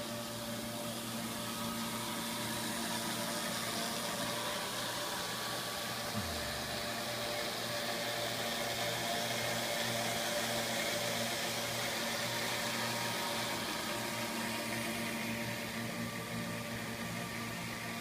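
Pester automatic carton flipper running: a steady machine hum with several fixed tones under an even hiss. A brief low thud comes about six seconds in.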